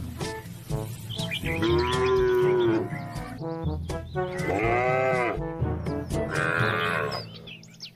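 Cows mooing: three long calls, the middle one rising and falling in pitch.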